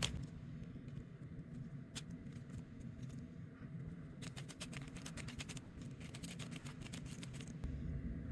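Faint plastic clicking of a 3x3 Rubik's cube's layers being turned by hand, with a quick run of turns about four to five and a half seconds in, over a low steady hum.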